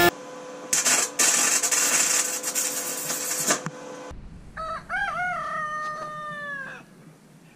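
A few seconds of loud, harsh, irregular noise, then a rooster crows once: a few quick rises and falls in pitch, then a long held note that sinks at the end.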